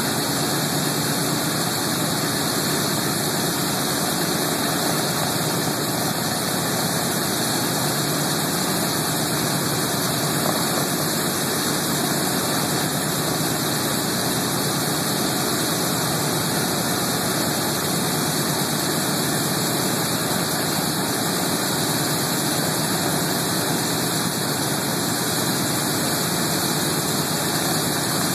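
Boeing B-17 Flying Fortress's Wright R-1820 Cyclone radial engines idling, a steady, unchanging engine noise with no rise or fall in speed.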